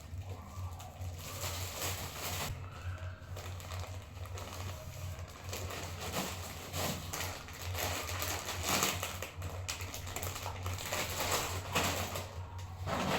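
Irregular rustling and crinkling handling noise over a steady low hum.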